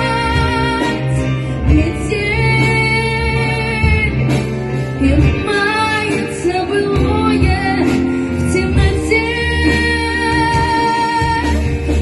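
Music: the instrumental break of a pop ballad, with a steady backing track, strong bass and a wavering sustained lead melody.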